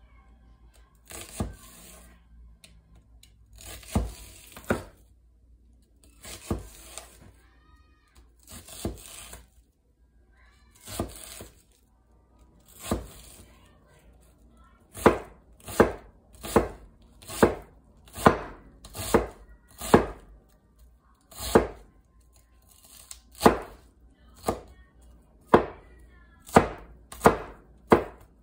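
Chef's knife dicing a red onion on a white cutting board: crisp cuts, each ending in a knock of the blade on the board. The cuts are spaced out at first, then come in a faster, louder run of chops from about halfway.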